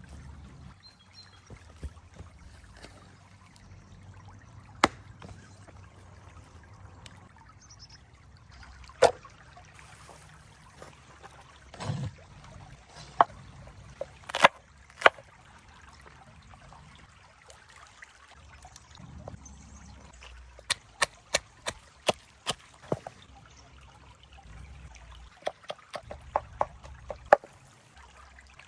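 A series of sharp knocks and taps, some in quick runs of several a second, over a faint steady trickle of water.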